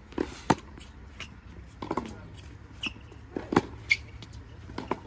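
Tennis ball struck hard with a racket, two loud sharp hits about three seconds apart, with fainter knocks of the ball being returned and bouncing on the hard court between them.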